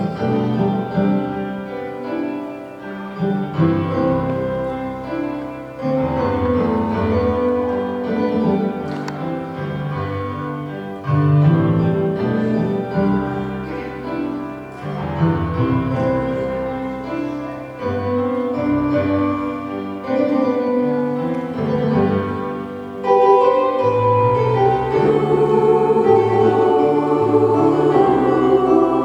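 Music: a song performance with keyboard accompaniment, growing louder about 23 seconds in.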